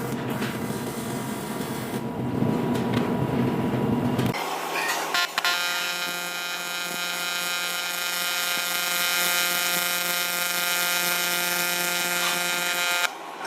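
TIG welding arc on aluminium, buzzing steadily from about five seconds in and cutting off sharply near the end. Before it comes a rougher, mixed workshop noise.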